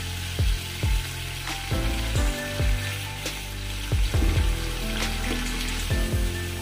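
Ground onion, garlic, ginger and chilli paste sizzling as it is poured into hot oil in a steel kadhai, stirred with a spoon near the end. Background music with a regular beat plays over it.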